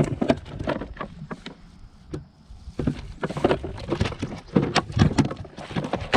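Irregular knocks and clatter of objects bumping around in a small fishing boat, with a short quieter gap a couple of seconds in.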